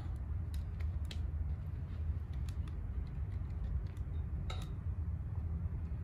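Metal kebab skewers clicking and clinking now and then as they are handled on a charcoal grill, over a steady low rumble.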